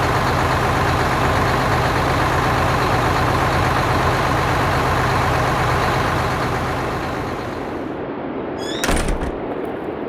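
A locomotive engine sound effect, started up and running steadily with a low, even rumble that eases slightly near the end. About nine seconds in there is a brief, sudden burst of noise.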